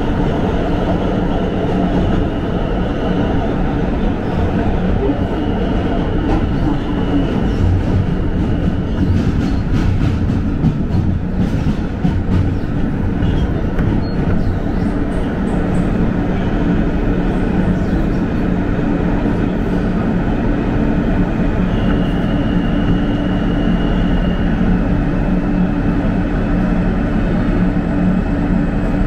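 Inside an R160 New York subway car running through the tunnel: steady rumble of steel wheels on rail with a motor hum, and a high whine that comes and goes several times. A stretch of clicking and clatter comes about ten seconds in. The train runs into a station near the end.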